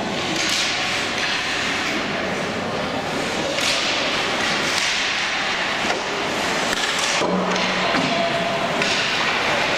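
Ice hockey game in an indoor rink: a continuous wash of skate blades scraping the ice, broken by about half a dozen sharper scraping bursts and knocks of sticks and puck.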